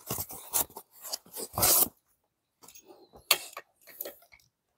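Handling noises from fitting the folding e-bike's handlebars: a quick run of small clicks and knocks, a short scrape a little under two seconds in, then a few scattered clicks.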